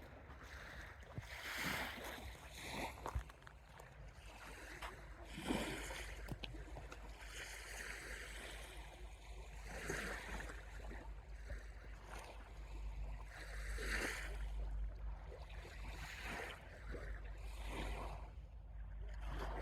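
Small sea waves washing onto the shore, one swell of surf every few seconds, over a steady low rumble.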